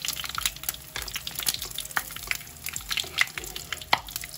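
Hot oil sizzling and crackling around corn dogs shallow-frying in a pan, a dense run of small pops. A sharper click stands out about four seconds in.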